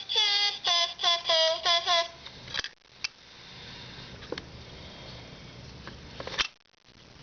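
Barbie toy toilet's electronic sound chip playing through its small speaker: a short sung melody, cut off by a click about two and a half seconds in. Then comes a steady hiss of a flushing sound effect for about three seconds, ending in another click.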